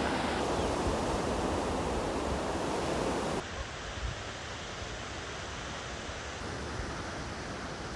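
Sea surf breaking and washing over a rocky reef as a steady rush of noise. About three seconds in it cuts off abruptly to a quieter, duller steady outdoor rush.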